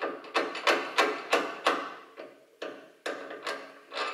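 Light metal knocks and clinks, about three a second, as Lambretta engine-mount parts are worked together. This fits an offset cone being tried in an engine mount bore that is too small for it.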